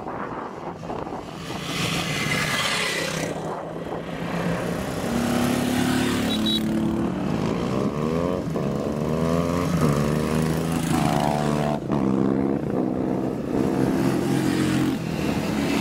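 Motorcycle engines on the road: a rushing pass in the first few seconds, then an engine revving up in rising sweeps that drop back again and again, as it shifts up through the gears.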